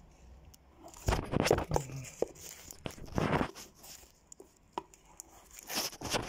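Hand fumbling with a phone, skin and fingers rubbing and knocking against its microphone: three short bursts of scraping noise, about one, three and six seconds in, with small clicks between.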